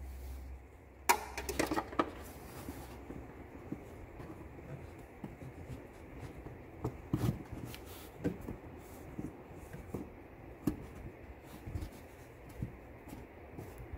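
Gloved hand working an LED drain-plug light with a rubber grommet down into a drain hole in the floor pan: scattered soft rubs and light clicks, busiest about a second in.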